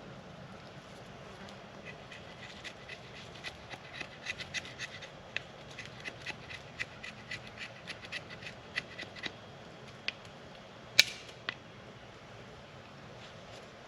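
A knife scraping fatwood into fine shavings: quick, short scrapes, about three or four a second, for several seconds. Then a few separate clicks and one louder, sharp snap.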